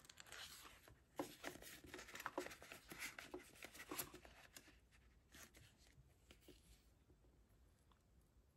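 Faint rustling of paper banknotes and crinkling of a clear plastic binder envelope as bills are handled and slid inside. The handling noises are busiest over the first five seconds, then thin out to a few soft touches.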